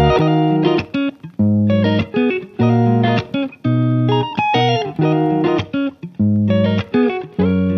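Background music: a plucked guitar playing short chords and notes in a steady, stop-start rhythm.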